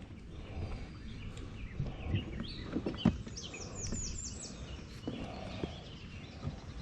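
Songbird singing, with a quick run of high, falling chirps about three to four seconds in, over a low outdoor background broken by a few faint knocks.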